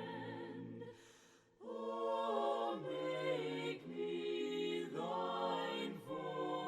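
A cappella hymn singing in several voice parts, no instruments. A held chord fades out about a second in, and after a short pause the voices come in again on a new phrase of long held notes.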